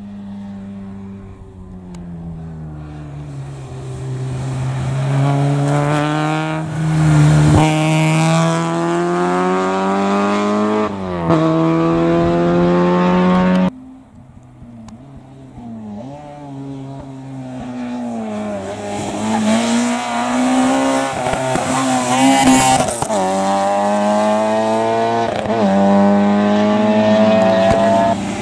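Rally cars on a special stage, engines revving hard through the gears as they climb toward the spectator, the pitch rising and dropping at each gear change and growing louder as each car nears. The sound cuts off abruptly about halfway through, and a second car's engine then builds up again the same way.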